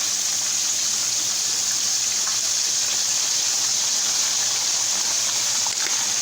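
Floured cube steak frying in hot oil: a steady, even sizzle.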